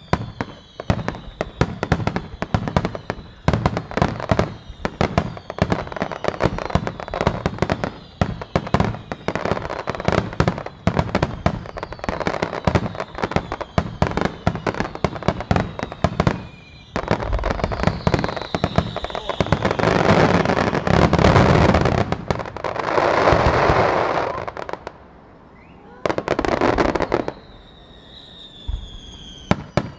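A fireworks star mine barrage: dense, rapid crackling and bangs from many shells fired in quick succession, with thin whistling tones over them. After about seventeen seconds come heavier, longer blasts, then a short lull, one more blast and scattered cracks near the end.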